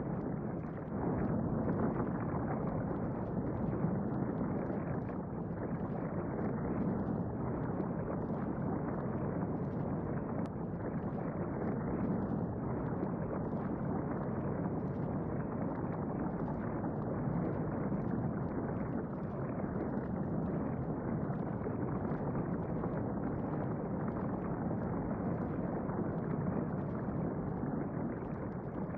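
Steady low rumble of a volcano and lava sound effect, an even noise with no tune or beat that holds without a break.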